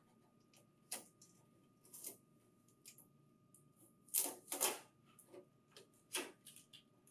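Blue packing tape and plastic shipping restraints being pulled off the inside of a printer paper tray: irregular light clicks and rustles, the loudest a close pair a little over four seconds in.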